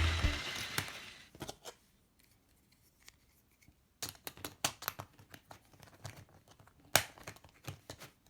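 Hard plastic toy train track pieces clicking and rattling as they are handled and fitted together, in short irregular clusters. Background music fades out during the first second.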